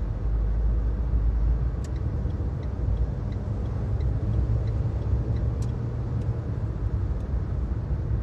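Steady low rumble of a car's tyres and engine cruising on a motorway, heard from inside the cabin. A faint tick repeats about every two-thirds of a second through the middle of it.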